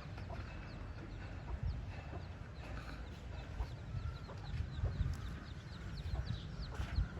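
Chicks peeping in many short, high, falling chirps, several a second, with a hen clucking among them, over a steady low rumble.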